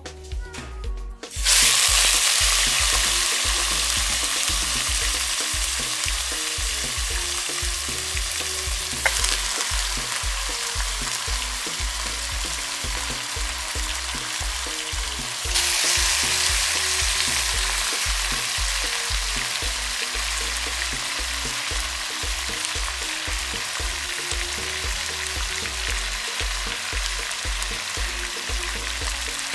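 Seasoned bone-in meat chunks sizzling hard as they go into a stainless steel pot of hot caramelized sugar. The sizzle starts suddenly about a second and a half in and jumps louder again about halfway through as more meat goes in, then settles into a steady fry.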